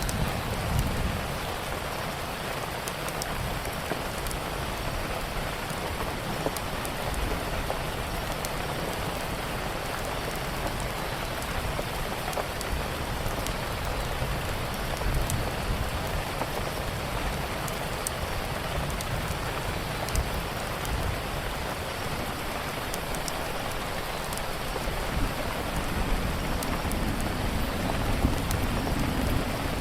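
Steady rainfall with scattered small crackles from a fireplace, over a low rumble that swells briefly near the start and again near the end.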